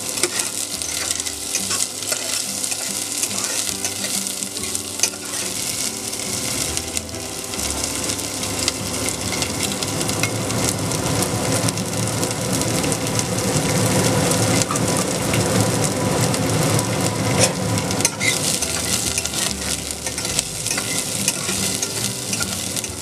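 Chopped onion and garlic sizzling in hot oil in an aluminium pressure cooker, with a metal spatula stirring and scraping the bottom of the pan now and then.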